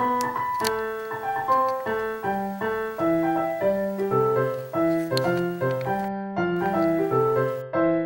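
Background piano music: a light keyboard melody of short notes at a steady pace.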